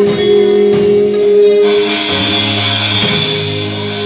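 Live worship band playing without vocals: a held chord rings on, and bright percussion shimmer comes in a little under two seconds in.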